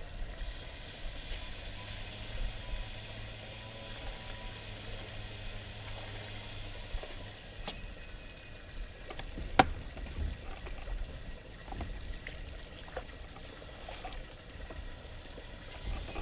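Quiet sounds around a fishing boat: light water sounds, a steady low hum during the first few seconds, and scattered small clicks and knocks, the sharpest about ten seconds in.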